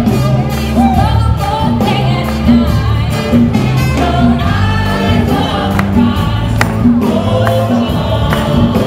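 Live gospel-style worship music: many voices singing over a band with steady bass notes and a few sharp percussion hits.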